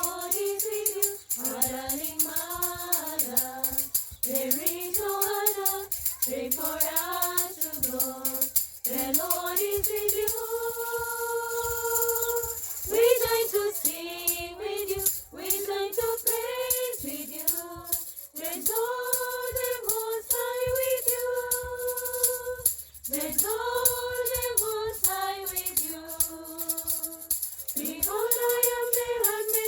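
A Marian devotional hymn being sung, with long held, gliding melody notes over a steadily shaken tambourine.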